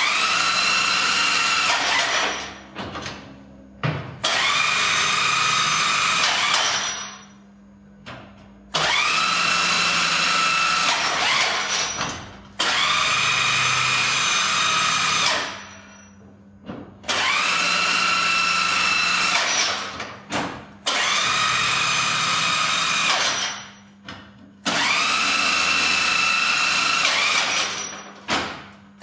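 Electric lift motor of a Lectro Truck 6512E battery-powered stair climber running in repeated cycles as it climbs a flight of stairs under load: about seven runs of a steady whine, each lasting about two and a half seconds and rising in pitch as it starts. Each run is separated by a pause of one to two seconds with short knocks.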